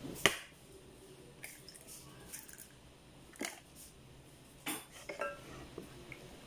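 Light taps and clinks on a glass mixing bowl as eggs are cracked on it and a wooden spoon goes in. There are a few separate sharp clicks, and the one just after the start is the loudest.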